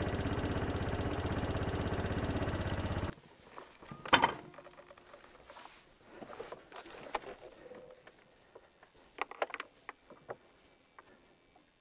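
Honda SH150i scooter's single-cylinder four-stroke engine idling steadily, just after starting. It cuts off abruptly about three seconds in, leaving faint scattered clicks and knocks, the sharpest about a second later.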